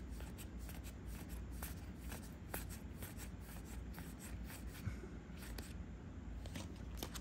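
Trading cards being handled and flipped through by hand: faint, scattered soft clicks and rustling of card stock.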